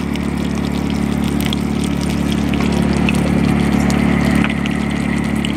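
A motor running steadily: a low, even hum made of several steady tones, with faint light ticks over it.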